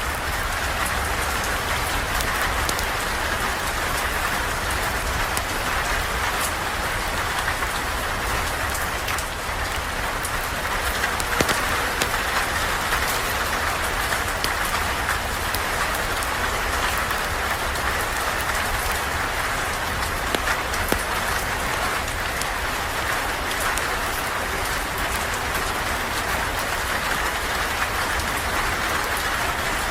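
Steady rain falling and pattering on surfaces, with scattered sharp clicks and a few louder ticks.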